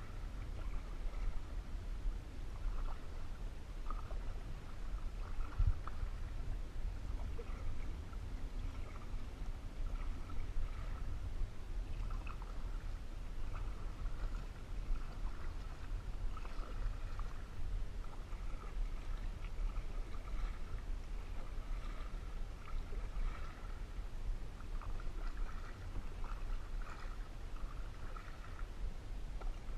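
Canoe paddling: the paddle dipping and water splashing and lapping at the hull, over a steady low rumble.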